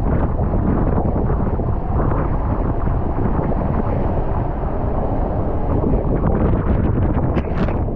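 Water rushing under an inflatable ride tube as it slides down a water slide, with wind buffeting the camera microphone; a few sharper splashes come near the end.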